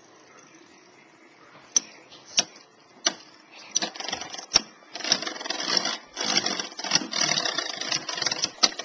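Two Beyblade metal-wheel spinning tops, Lightning L-Drago 100HF and Rock Aries ED145B, whirring in a plastic stadium. Their metal wheels clash: a few sharp clacks from about two seconds in build into a dense rattle of rapid hits about four seconds in, easing near the end.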